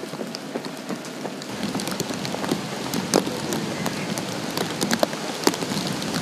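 Steady rain falling, with many sharp ticks of drops striking close by; it grows a little louder and fuller about a second and a half in.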